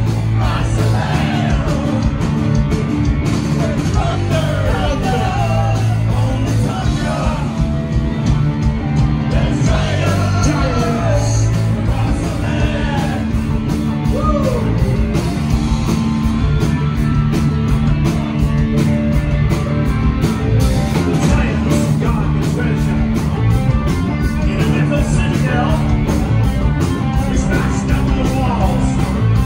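A live heavy metal band playing loudly: distorted electric guitars and keyboards over a steady driving drum beat, with a singer belting and shouting into the microphone.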